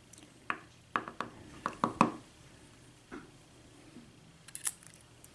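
Small sharp clicks and taps of metal lock parts being handled while the top pins of a disassembled Corbin euro pin-tumbler cylinder are sorted out one by one, about eight to ten in all, most in the first two seconds and a pair near the end.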